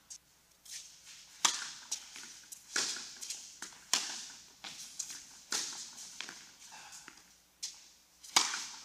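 Tennis ball being struck by rackets and bouncing on an indoor court: a string of sharp pops, about a dozen, each with a short echo off the hall's walls, the loudest about a second and a half in and near the end.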